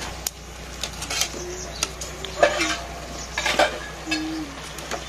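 Steel ladle stirring and scraping leafy greens in a blackened iron wok, with irregular sharp clinks of metal on the pan.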